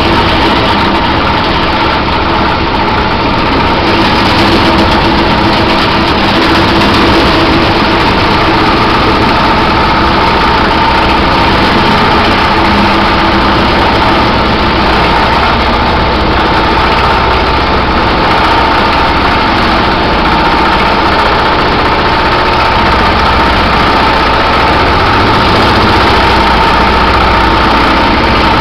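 Fixed-stroke reciprocating power hammer, an old riveter converted to a hammer, running loudly and steadily as its dies pound a bead into a sheet-metal floor pan fed through them.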